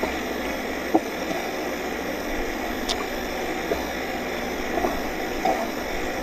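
Radio-controlled racing boat under way, heard from its own deck: a steady rush of water along the hull and its running drive, with a few small knocks as it meets small waves.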